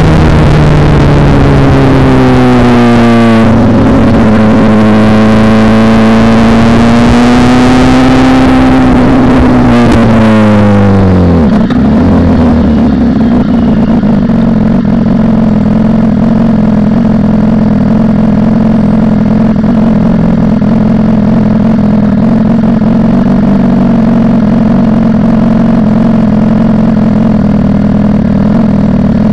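BMW S1000RR inline-four running without its muffler, loud and unsilenced. Its note falls as the bike slows, with two brief dips and rises in pitch, then drops about eleven seconds in to a steady idle that holds.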